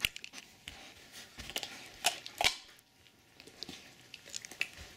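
Hard plastic capsule clicking and scraping on carpet as a wolfdog paws and mouths it: scattered light clicks, a few sharper ones, over a soft rustle.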